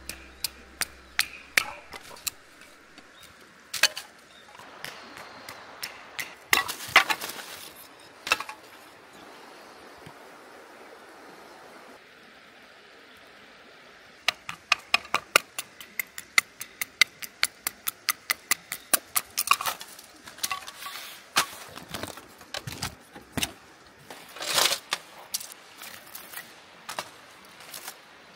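Sharp wooden knocks and cracks of cut lumber blocks being split into kindling with a blade struck through the wood. There are scattered knocks early, a few louder cracks, and a fast even run of about four knocks a second in the middle.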